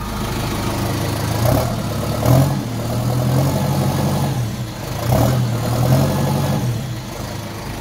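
New Holland T5060 tractor's diesel engine running just after a cold-shed start, revved up twice and allowed to settle back to idle, with a nice little growl to it.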